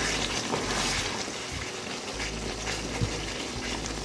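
Thick chicken masala bubbling and sizzling in a frying pan over high heat as a spoon stirs it, with a short knock about three seconds in.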